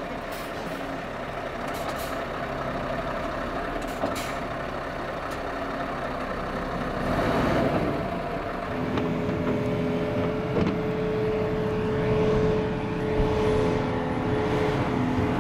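Heavy diesel machinery running steadily, with a few short sharp clicks in the first four seconds. About nine seconds in, a steady humming whine joins in and the sound grows slightly louder.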